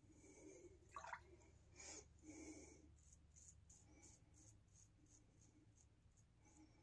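Faint scraping of a three-piece safety razor drawn through lathered neck stubble: a run of short, scratchy strokes, about two a second, strongest in the first half.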